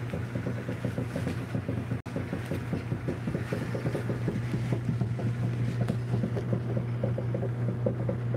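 Hamilton Beach microwave oven running while heating food: a steady low hum with a fast, uneven buzzing rattle over it. The sound cuts out for an instant about two seconds in.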